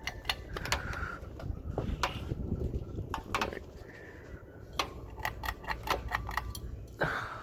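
Quorum Virtue ceiling fan running on high speed: a steady low rumble with irregular sharp clicks and ticks, from its blades still tapping a sign now and then.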